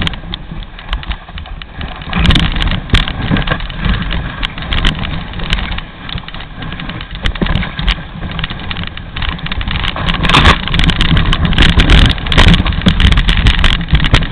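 Dog sled running downhill over snow: a continuous scraping rumble from the runners, broken by many short clicks and knocks. It gets louder about two seconds in and again from about ten seconds on.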